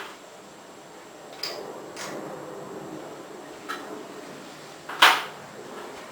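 Sharp clicks and knocks, four of them, the loudest about five seconds in with a short ring, from the pull chain of a vintage Alaska ceiling fan being worked to change its speed. Under them runs a steady low sound from the fan turning slowly.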